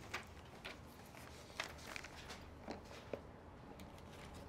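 Faint scattered knocks and rustles of people shuffling about and handling sheets of paper, about seven short sounds over a low room hum.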